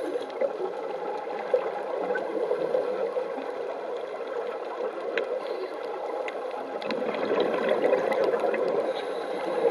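Muffled underwater noise on a coral reef, a steady rushing haze with scattered sharp clicks, growing a little louder about seven seconds in.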